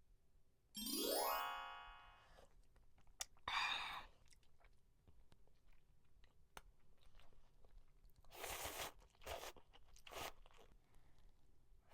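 A short rising pitched sound effect about a second in, followed by a person eating close to the microphone: several crunching bites and chewing.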